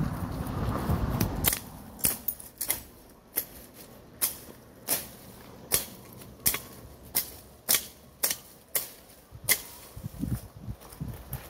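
Machete chopping weeds at ground level: about a dozen sharp, evenly spaced chops, roughly one every two-thirds of a second, starting about two seconds in after a brief rustle of cut vegetation.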